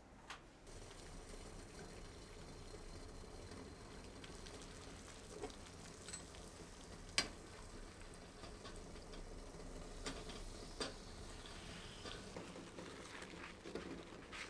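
Water boiling in a small stainless saucepan with eggs in it, a steady bubbling hiss, with a spoon clicking against the pan a few times, sharpest about seven seconds in. Near the end there are small handling sounds.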